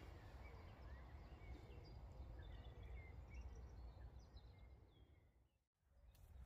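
Faint outdoor ambience: scattered distant bird chirps over a low steady rumble. It fades to silence about five and a half seconds in, then comes back.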